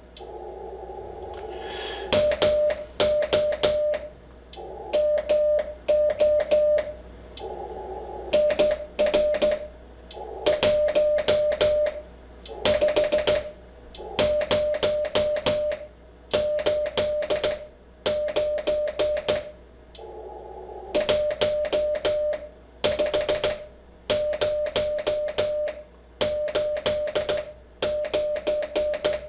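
Morse code sent by hand on a straight key through an Icom IC-7300 transceiver: the radio's steady sidetone beeps in dots and dashes, and the key clacks sharply with each element because it is being struck too hard. Before the sending starts, about two seconds in, and in short pauses between groups, filtered receiver hiss is heard.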